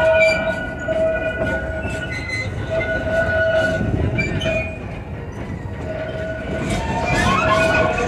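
A small theme-park train, pulled by a Porter locomotive converted to diesel-hydraulic, heard from aboard while it rolls along: a steady low rumble, with high squealing tones that come and go.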